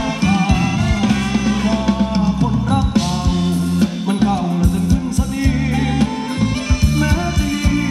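Thai ramwong dance music from a live band over a PA: a steady drum beat and bass under a singer's melody.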